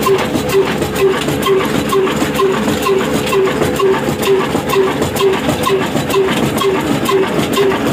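Big old 45 HP slow-speed diesel oil engine running steadily, with a regular beat a little over twice a second and faster light clicking from its working parts.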